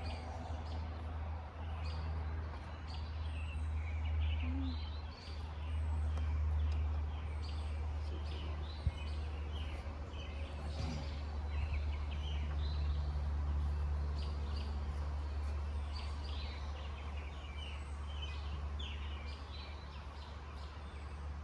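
Small birds chirping over a steady low rumble, with one sharp knock about nine seconds in.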